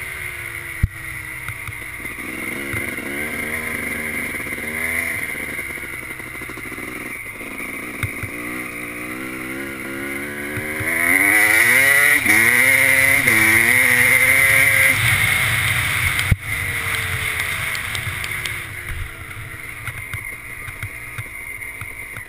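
Honda 250 two-stroke off-road engine being ridden hard, its pitch climbing and dropping repeatedly as the throttle is worked. It is loudest in a long rising pull a little past halfway, then a single sharp knock, after which it runs lower.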